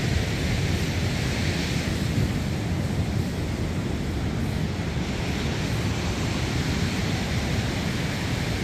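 Steady wind buffeting the microphone over the wash of surf from the sea.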